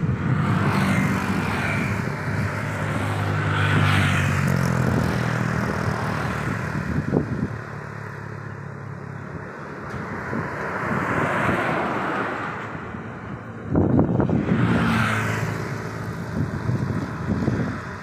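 Road traffic passing on a highway: motorcycles, cars and a heavy cargo truck go by one after another, each swelling and fading with engine drone and tyre hiss. A loud engine drone dominates the first few seconds, and another vehicle passes close and suddenly loud about fourteen seconds in.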